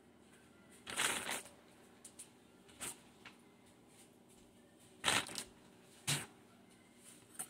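Off-camera rustling and clatter of kitchen things and food packaging being put away: about five short bursts, the longest about a second in.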